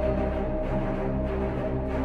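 Background music of slow, held chords over a low drone.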